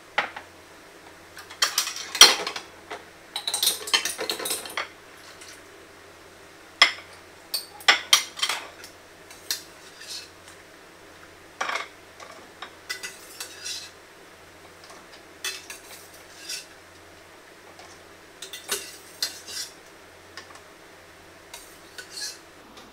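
A metal spoon clinking and scraping against a stainless steel pot and glass canning jars as hot okra is spooned into a jar through a canning funnel. The clatter is irregular, loudest in the first few seconds.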